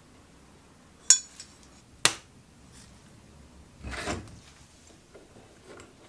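Two sharp metal knocks about a second apart, then a short rattling scrape as a small clamp-on bench vise is handled and fixed to the edge of a workbench, with a few faint ticks after.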